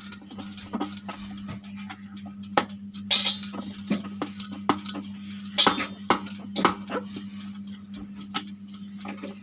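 Wooden rolling pin rolling out pizza dough on a round wooden board, giving irregular knocks and clacks as it goes back and forth, over a steady low hum.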